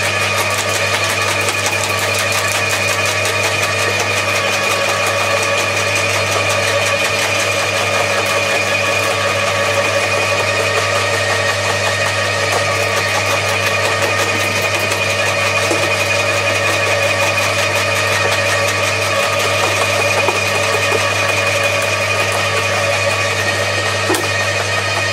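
Two electric roller garden shredders, a Bosch AXT 2300 and an Atika LH 2500, running together: a steady motor hum under a dense, continuous crackle of thuja branches being drawn in and crushed by the rollers.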